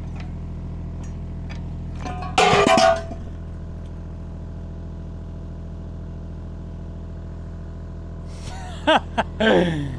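Takeuchi TB216 mini excavator's diesel engine idling steadily. About two and a half seconds in there is a loud metallic clank as the bucket is levered free of the quick hitch with a bar, and a few short sharp sounds follow near the end.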